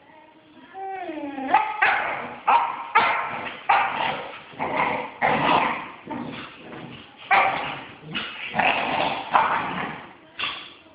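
A puppy gives a short falling whine, then yaps and barks over and over in sharp separate calls, about one or two a second, stopping just before the end.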